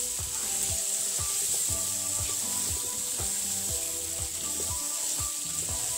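Cubed potatoes sizzling in oil and onion-tomato masala in a pan as they are stirred in, under background music with a steady beat.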